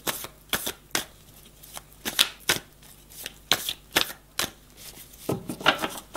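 A deck of tarot cards being shuffled by hand: irregular crisp slaps and clicks of the cards, bunching into quicker clusters near the end.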